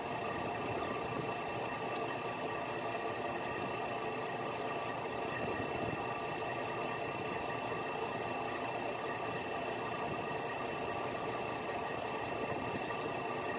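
A fishing boat's engine running steadily, an even hum with a few constant tones and no change in speed.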